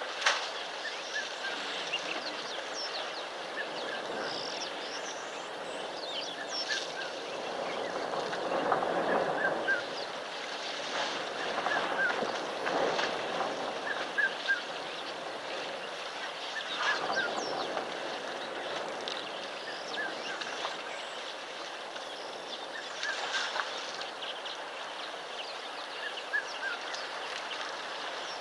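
Outdoor bush ambience with small birds chirping again and again, and several louder stretches of noise that swell and fade over a second or two.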